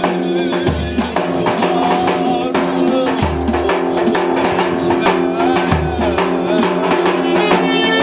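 Live Thracian wedding music: jingling tambourine (def) strokes, a man singing, and a clarinet, over deep davul bass-drum strokes about every two and a half seconds.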